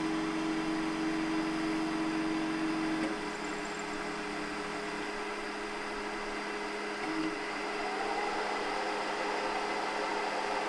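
WDS-650 BGA rework machine running while its head lowers the socket: a steady motor hum that cuts off about three seconds in, with another part of it stopping about two seconds later, over an even whirring.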